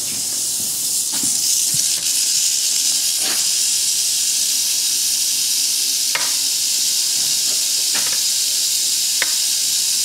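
Mojave rattlesnake rattling its tail in a continuous high-pitched buzz, the defensive warning of an agitated rattlesnake. A few faint clicks sound through it.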